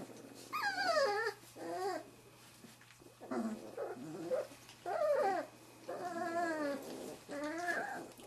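Three-and-a-half-week-old Wirehaired Pointing Griffon puppies whimpering. There are about seven short, high, whiny cries, each sliding down in pitch, with short pauses between them.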